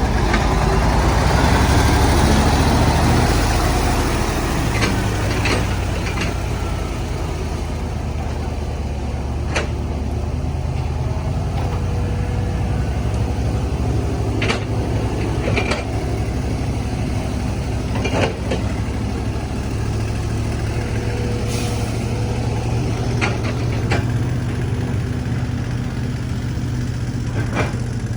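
Diesel engine of an earthmoving machine running steadily at work, louder for the first few seconds and then settling lower, with scattered sharp knocks every few seconds.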